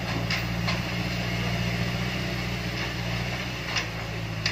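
Truck engine idling steadily, a low even hum, with a few light clicks over it.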